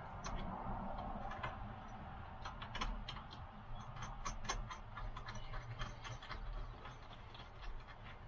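Ratchet wrench clicking in short, irregular runs as the mirror's mounting nuts are run down on their studs.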